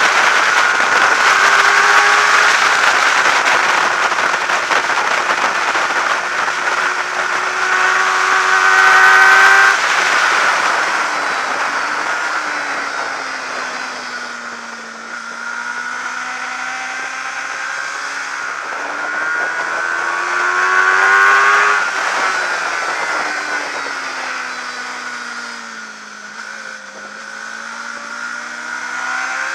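600 cc supersport racing motorcycle's engine heard onboard at racing speed under a constant rush of wind. The revs hold high and climb for about the first ten seconds, drop away around the middle into a corner, climb again, fall once more a few seconds before the end, then rise.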